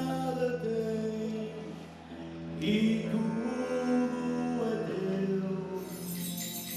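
A choir singing long held notes, with a bright jingling shimmer coming in near the end.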